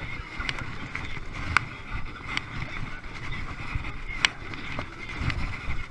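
Wind buffeting the microphone over choppy water slapping a kayak, with sharp knocks and splashes at irregular intervals, the two loudest about a second and a half and about four seconds in.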